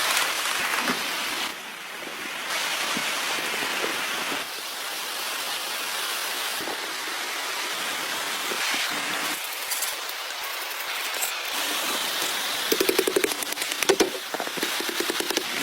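Steady rushing of water, with the sound jumping in level at several edits. Near the end comes a run of quick crackling clicks, with one sharper snap.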